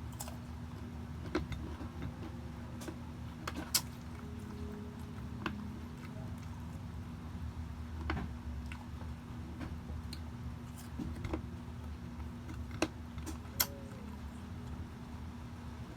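Mukbang eating and food-handling noises: sparse, light clicks and taps scattered over a steady low hum.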